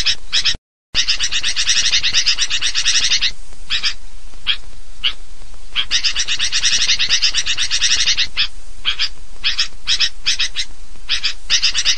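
Sooty-headed bulbul (kutilang) lure call: long runs of rapid, excited chattering notes broken by short single calls, with a brief cut-out just under a second in.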